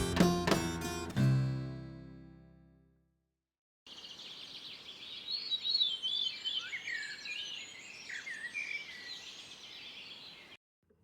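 Guitar music with plucked notes ringing out and fading away over the first two to three seconds. After a short gap, birds sing with quick, high twittering chirps over faint background hiss for about seven seconds, then stop abruptly.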